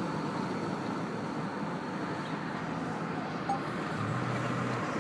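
Steady road noise of a car driving along, with a low hum that comes in briefly about four seconds in.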